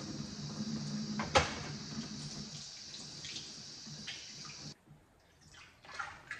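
Kitchen tap running into a stainless steel sink while a drinking glass is rinsed under it, with one sharp knock about a second and a half in. The water cuts off suddenly about two-thirds through, leaving a few faint clinks of dishes being handled.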